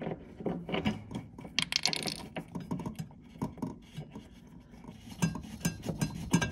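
Small clicks and knocks of a hand fitting the locking nut onto a dishwasher heating element's terminal under the tub, with a louder scraping rustle about two seconds in.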